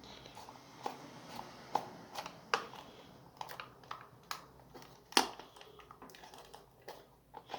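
Small clicks, taps and light scrapes of a plastic multimeter housing being handled and pulled apart while its long screws still hold it, with one sharper click about five seconds in.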